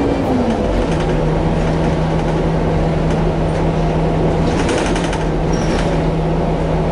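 City bus under way, heard from inside the passenger cabin: a steady engine drone over road rumble. The engine note falls near the start, then holds steady.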